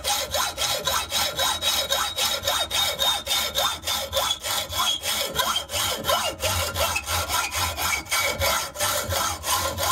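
Hacksaw cutting through a stainless steel bolt held in a bench vise, with even back-and-forth strokes, about four a second. A faint high ringing slowly falls in pitch under the strokes.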